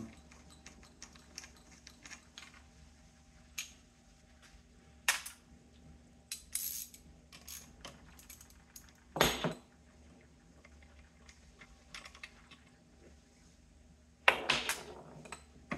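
Small metallic clicks and clinks as two 10 mm nuts and their washers are undone from the points plate and coil assembly on the front of the engine. A few louder clinks stand out, the loudest about nine seconds in.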